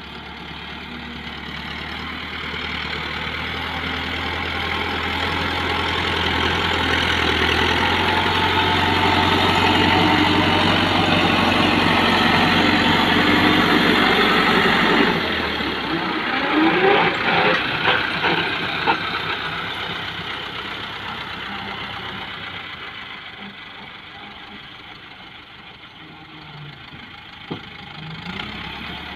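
Massey Ferguson 375 diesel tractor engine working under load as it pushes soil with its front blade. It grows louder as the tractor comes close. About halfway through the low engine note drops off suddenly, with a few clunks and a brief rise in revs, and then the engine fades as the tractor moves away.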